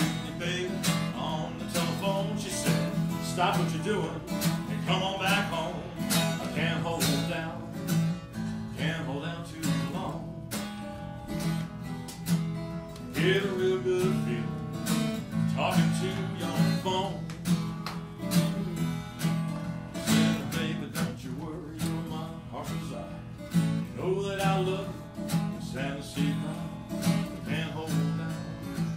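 Acoustic guitar playing a slow blues groove, plucked notes over a steady low bass note.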